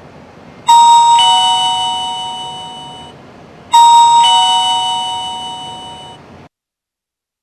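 Electronic ding-dong doorbell chime of a video smart lock, rung twice: each ring is a higher note and then a lower one, fading away. The second ring cuts off abruptly before it has faded out.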